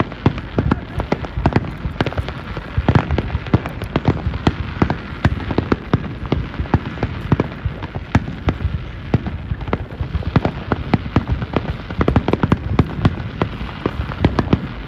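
Fireworks display: shells bursting in quick succession with dense crackling, many sharp bangs a second.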